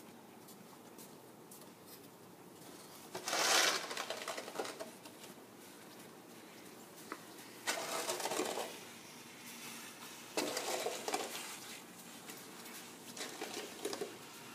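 Shovel blades scraping across a snowy paved driveway: four separate scrapes, a few seconds apart, the first about three seconds in and the loudest.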